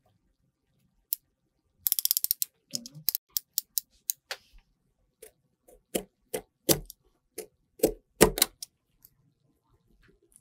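Knife blade cutting into a green lemon's peel on a wooden board. A quick run of sharp clicks comes about two seconds in, followed by several single clicks. From about six seconds there are half a dozen louder cutting strokes, each with a dull thud.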